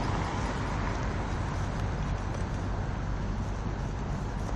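Steady low vehicle rumble with an even hiss over it, and no distinct knocks or calls.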